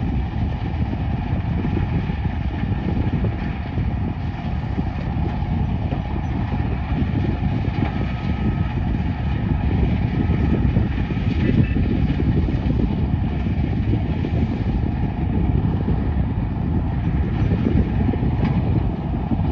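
Heavy diesel machinery running steadily: a Cat excavator and a mobile screening plant at work, a continuous low rumble.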